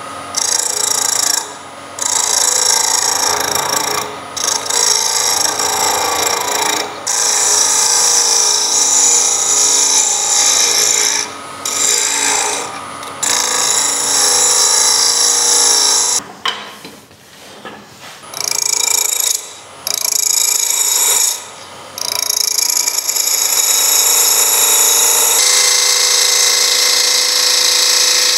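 Quarter-inch bowl gouge cutting a spinning wooden blank on a wood lathe, a hissing scrape in strokes of a few seconds broken by short pauses as the tool comes off the wood.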